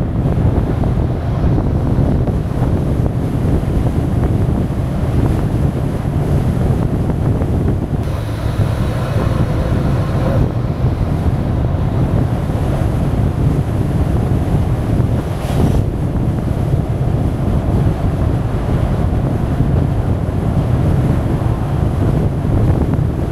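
Heavy wind buffeting on the microphone of a camera moving along a road, a steady low rumble. About eight seconds in the hiss swells for a couple of seconds, and there is a single short tick about fifteen seconds in.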